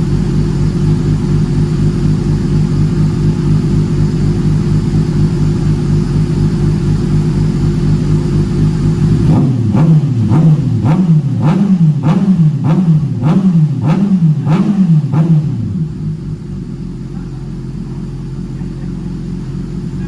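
Kawasaki ZX-6R race bike's inline-four engine idling steadily. About halfway through it is blipped through about eight quick revs, each rising and falling in pitch. It then drops back to a quieter idle.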